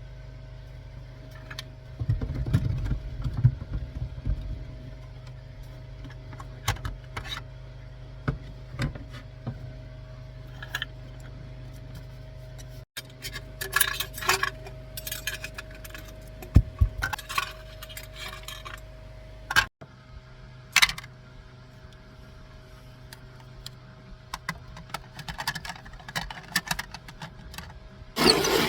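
Objects being handled: scattered clinks, taps and knocks, some metallic, over a steady low hum.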